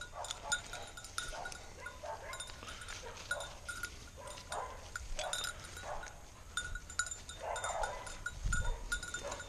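A small bell on a springer spaniel's collar tinkles in short, irregular jingles as the dog quests through the undergrowth. Dry leaves and brush rustle underneath.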